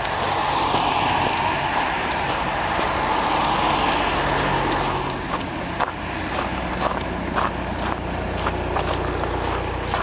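A car passing on a wet, snowy street, its tyre noise swelling and then fading after about five seconds. Footsteps crunch in the snow underneath, clearer once the car has gone.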